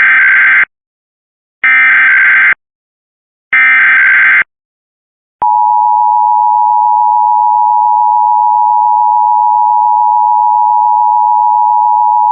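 Emergency Alert System SAME header: three one-second bursts of screechy digital data tones with short gaps between them. About five seconds in, the steady two-tone EAS attention signal (853 and 960 Hz) begins and holds.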